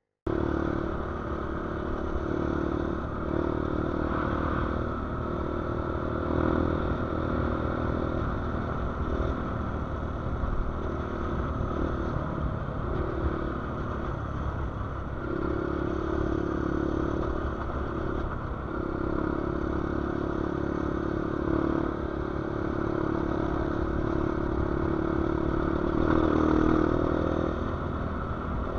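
Motorcycle riding along a dirt road, heard from on board: a steady engine drone that eases and picks up with the throttle, over wind and road rumble with some rattling.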